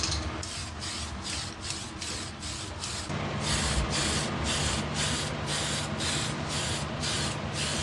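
Aerosol can of Mr. Super Clear UV Cut Flat spraying a matt clear coat over plastic model parts in short hissing bursts, about three a second, to even out the gloss of the paint. A low steady hum comes in about three seconds in.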